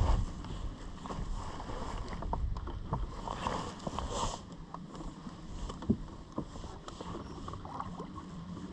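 Scattered light clicks and knocks of fishing gear being handled in a boat, with one sharper knock about six seconds in.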